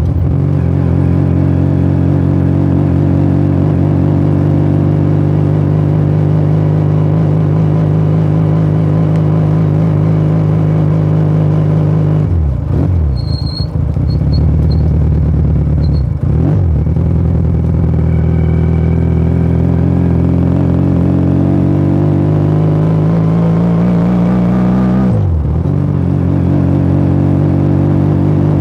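Motomel Rider 250 motorcycle engine and exhaust, heard from the bike while riding and running steadily under way. The revs dip sharply and climb back three times, about twelve, sixteen and twenty-five seconds in.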